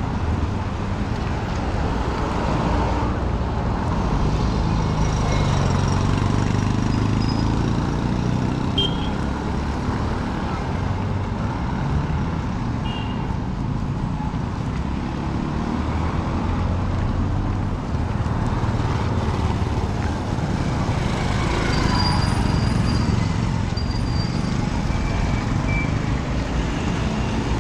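Busy street traffic ambience: a steady rumble of passing motor vehicles and engines, with indistinct voices.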